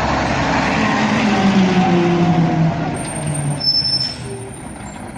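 Water running in a steady hiss as a muddy toy truck is rinsed clean, easing off about four seconds in.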